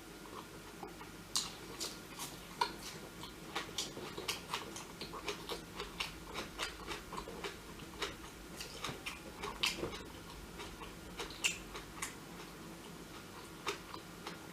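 A person eating close to the microphone: chewing with irregular sharp mouth clicks and smacks, several a second.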